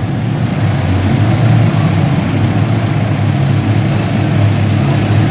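Engine of a competition pulling vehicle running steadily, with no clear revving.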